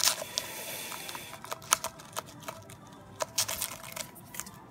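Sealed trading card pack wrappers crinkling and crackling as two packs are handled in the hands, with a scatter of sharp, irregular clicks.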